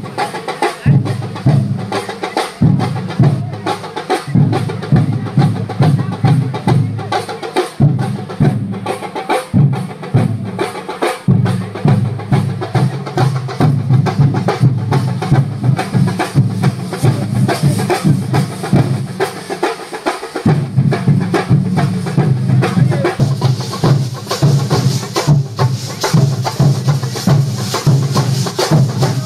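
A festival percussion ensemble playing live: many drums beating a fast, driving rhythm, with metallic cymbal clashes that grow louder toward the end. The low drums drop out briefly about two-thirds of the way through.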